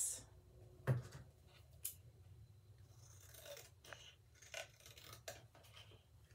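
Scissors cutting thin cereal-box cardboard: a sharp snip about a second in, another about a second later, then a scatter of lighter snips and rustling of the card.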